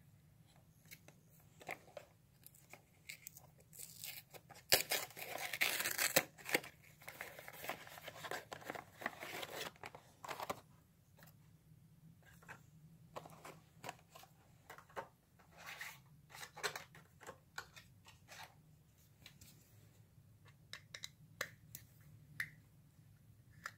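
Cardboard box and clear plastic blister packaging of a small diecast model car being opened and handled: a stretch of tearing and crinkling a few seconds in, then scattered small clicks and rustles.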